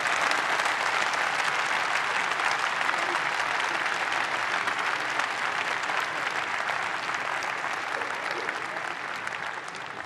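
Large audience applauding, a dense steady patter of many hands clapping that slowly dies down near the end.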